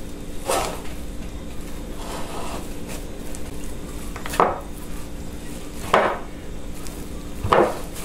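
Kitchenware knocking against a bowl while cheese-bread dough is being mixed: four sharp knocks at irregular intervals over a steady low hum.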